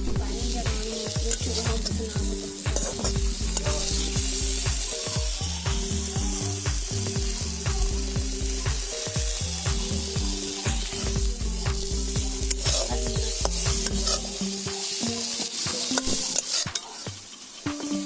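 Fish pieces sizzling in hot oil in a wok, with a metal spatula scraping and stirring against the pan. Background music with a steady bass beat plays under it, the bass dropping out about fifteen seconds in.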